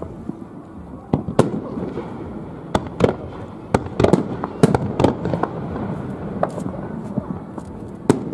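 Aerial firework shells of a display bursting: a quick, irregular run of about a dozen sharp bangs, the loudest a little past the middle and one near the end.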